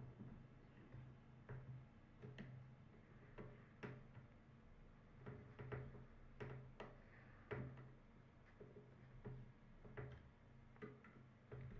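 Faint, irregular small clicks and ticks, roughly one a second, as a plastic headset earpiece and its screws are worked loose by hand, over a low steady hum.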